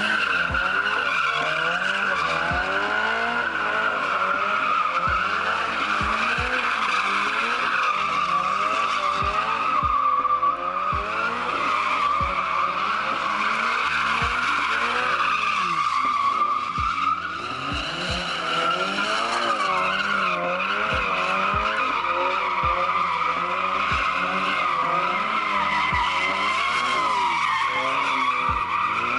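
A car drifting: continuous tire squeal with the engine revving up and down as it slides.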